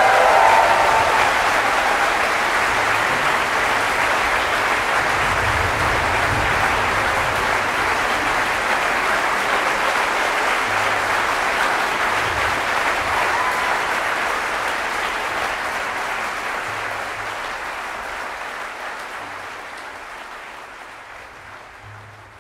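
Concert audience applauding at the end of an orchestral piece. The clapping is steady at first and then fades out over the last several seconds.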